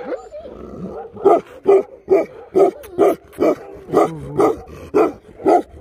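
Dog barking in a steady run, about two barks a second, starting about a second in.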